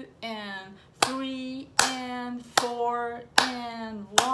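Hand claps in a steady beat, about one every 0.8 seconds, each followed by a held sung note as the rhythm of a simple 4/4 exercise is clapped and voiced.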